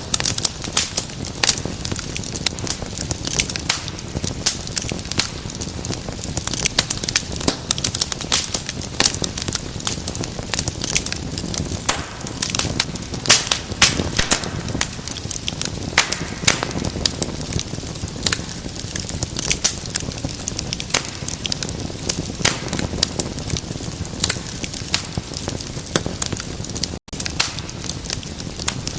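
Wood fire crackling, with a constant stream of sharp pops and snaps over the low rush of the flames. The sound drops out for an instant near the end.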